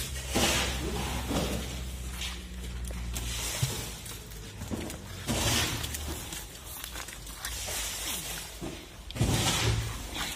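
Wet fish being handled and dropped on a wet stone floor: irregular slaps, knocks and rustles as they are picked up and moved. A low steady hum underlies the first few seconds and stops about three and a half seconds in.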